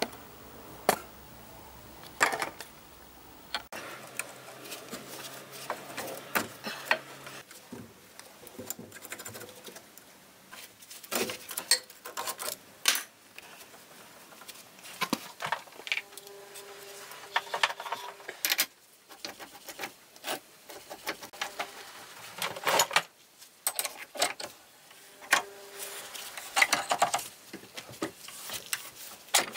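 Scattered, irregular metallic clicks and knocks of hand tools working on steel brake pipes and their fittings.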